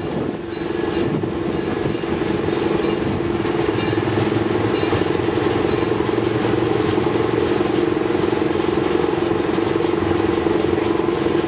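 Small amusement-park train's motor running with a steady, even hum, with faint light clicks through the first half.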